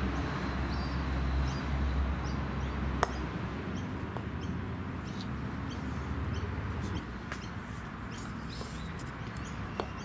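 Birds chirping over and over, with a sharp knock about three seconds in and a fainter one near the end, the click of a croquet mallet striking a ball, over a low background rumble that eases off after about seven seconds.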